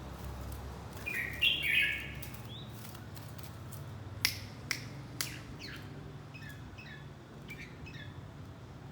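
Red-whiskered bulbuls calling: a loud burst of chirps about a second in, then softer short chirps near the end. Three sharp clicks in the middle, a fraction of a second apart.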